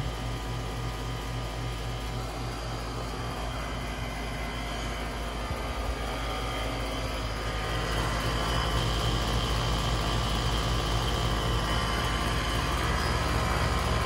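Outdoor air-conditioner and heat-pump condensing units running: a steady low compressor hum under the rush of their condenser fans, growing louder about halfway through.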